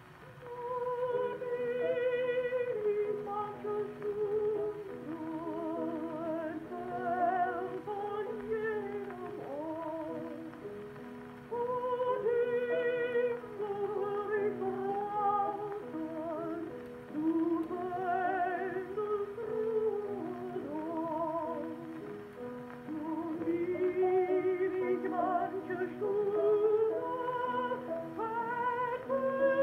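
A Victor 78 rpm record played on an acoustic gramophone with a thorn needle: a woman sings a German art song with vibrato over piano accompaniment. The voice comes in just after a short pause at the start.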